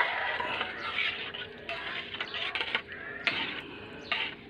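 A ladle stirring and scraping through thick pork-blood stew (dinuguan) in a metal pan, in irregular strokes. It is being stirred slowly and steadily so the blood thickens without curdling into lumps.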